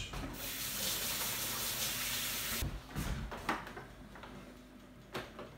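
Kitchen tap running for about two seconds while hands are washed, then cut off sharply, followed by a few light knocks.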